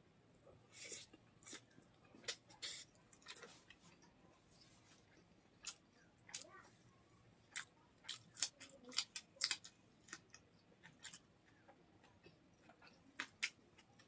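Close-miked chewing and crunching of chicken gizzard curry and rice eaten by hand, heard as sharp, irregular crunches and mouth clicks. A dense run of crunches comes about eight seconds in, as a raw red chilli is bitten.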